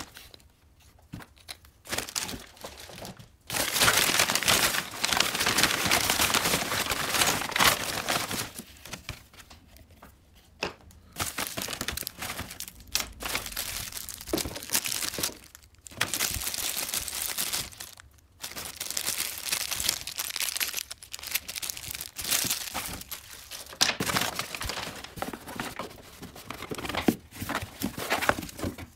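Crumpled kraft packing paper and plastic wrapping crinkling and rustling in irregular bursts as parts are lifted out of a cardboard box by hand, with short quiet pauses between handlings.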